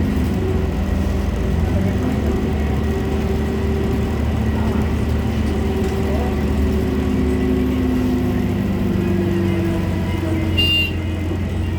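Road vehicle's engine and road noise while travelling: a steady low drone with engine tones that drift slowly up and down. A short high-pitched chirp comes near the end.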